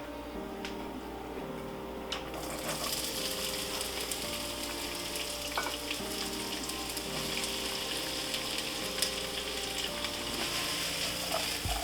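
Food sizzling in a hot frying pan, the sizzle swelling in about two and a half seconds in and then holding steady, with a few light clicks of utensils against the pan.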